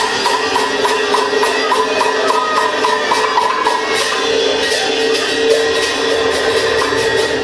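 Teochew opera ensemble accompanying a rod puppet play: percussion keeps a fast, even beat of sharp clicks, about three or four a second, over steady held instrument notes.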